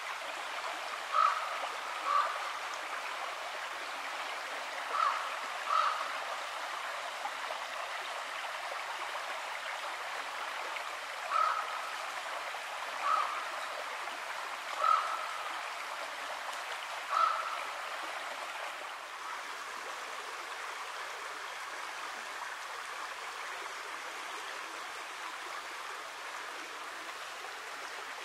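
Steady rush of a river flowing, with a short sharp call repeated about eight times over the first eighteen seconds, sometimes in pairs.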